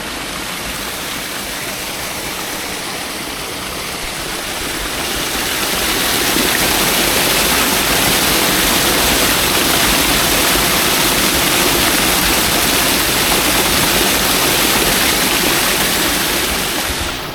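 Small creek waterfall pouring over a limerock ledge: a steady rush of falling water that grows louder about six seconds in.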